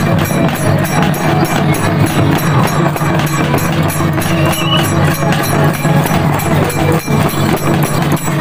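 Adivasi folk drumming: mandar barrel drums and a large drum beaten together with small brass hand cymbals clashing in a fast, steady rhythm.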